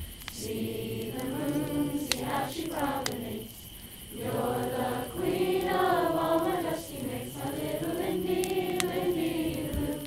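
A group of voices singing a slow song together in long held notes, with a short break about three and a half seconds in. A few faint sharp clicks sound over it.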